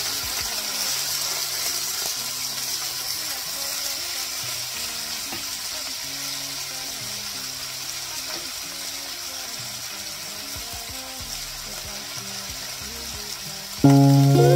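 Cubes of seasoned beef searing in a hot cast-iron skillet: a steady sizzle, with the meat being turned by a wooden spatula. Loud music cuts in near the end.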